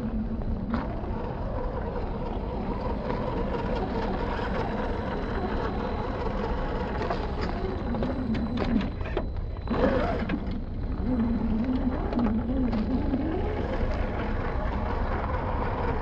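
Boomracing D90 RC scale crawler's electric motor and gearbox whining, the pitch rising and falling as the throttle is worked while it crawls over rough ground, with scattered clicks and crunches of gravel around the middle.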